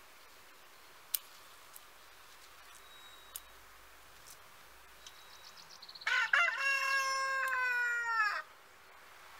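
A rooster crows once, a single loud call of about two and a half seconds that starts about six seconds in and sags in pitch at its end. Earlier, a few sharp clicks from scissors snipping sage stems.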